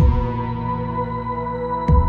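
Ambient music: held, drone-like chords, with a deep low boom right at the start and another near the end.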